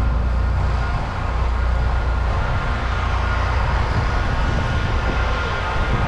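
Steady low rumble with a hiss, from blizzard wind on the microphone and city noise.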